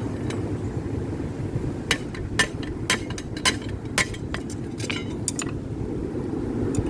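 Sharp metal-on-metal clinks and light taps, about ten of them, irregularly spaced, over a steady low roar from a propane forge burner.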